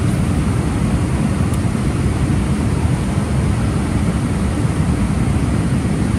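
Steady rush and low rumble of fast river water pouring through and below a dam spillway.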